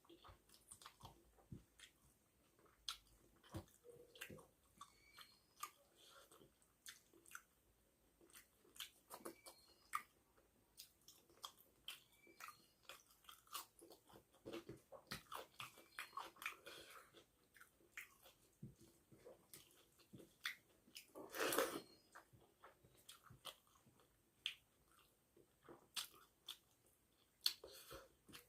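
Close-up mouth sounds of a person eating rice with fish head curry: steady wet chewing, smacking and small crunches, with one louder bite a little over two-thirds of the way through.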